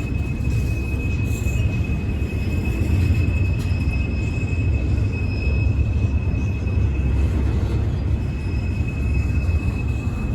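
CSX freight train cars rolling past over the crossing, with a heavy steady rumble and a continuous high-pitched wheel squeal.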